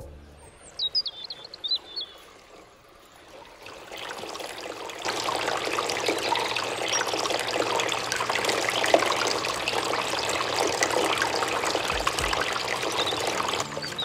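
Small pump-fed indoor waterfall running: water trickling and splashing from its concrete channel into the pebbled pool below, steady from about five seconds in. A few faint bird chirps sound at the start.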